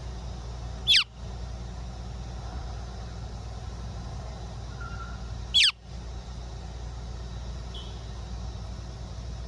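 A fledgling Australasian figbird giving two loud, short calls about four and a half seconds apart, each a sharp squeal falling steeply in pitch, over a steady low rumble.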